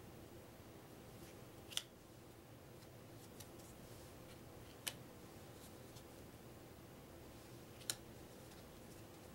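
Cardboard game cards laid down one at a time on a small stack on a wooden table: a sharp card snap about every three seconds, three in all, with a few fainter ticks between, over faint room hum.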